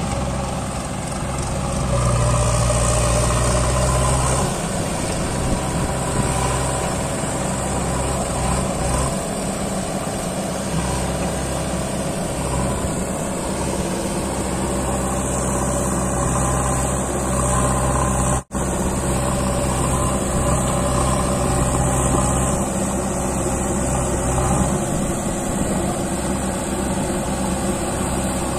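Diesel engines of a Mahindra 475 DI tractor and a JCB 3DX backhoe loader running side by side as the tractor works to pull its fully loaded trolley out of loose sand. The engine note rises and falls several times under the changing load, and the sound cuts out for a moment about two-thirds of the way through.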